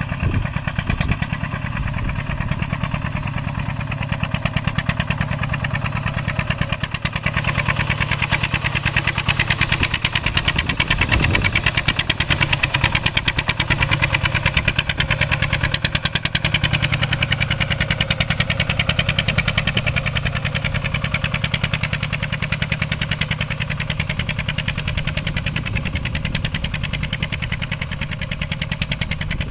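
Small farm tractor engine running steadily with a fast, even chug while it pulls a plough through a field.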